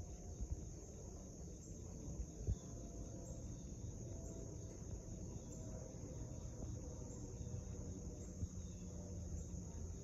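Steady high-pitched chirring of insects over a low background rumble, with a short knock about two and a half seconds in and smaller ones near the start and near the end.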